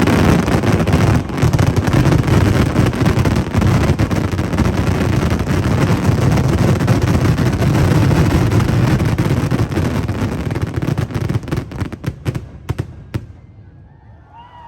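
Fireworks finale: a dense, continuous barrage of shell bursts and crackle. It thins to a few separate loud bangs and stops suddenly about thirteen seconds in.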